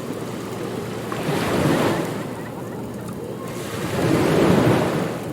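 Ocean surf: waves wash in and recede over a steady rush of water, swelling about a second and a half in and again near the end.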